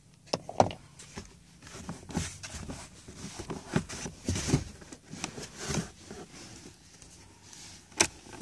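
Scattered plastic clicks, knocks and rustling as the glove box's fasteners and panel are worked loose and pulled out by hand, with one louder sharp click about eight seconds in.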